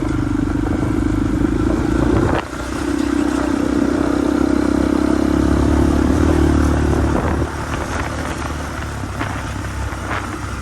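ZR250 trail bike's engine running as the bike is ridden. The engine note drops briefly about two seconds in, then pulls steadily again, easing off once more later on.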